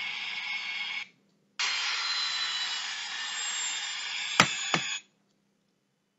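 A steady hissing noise that breaks off for about half a second a second in, then resumes. Two sharp clicks come near the end before it stops suddenly.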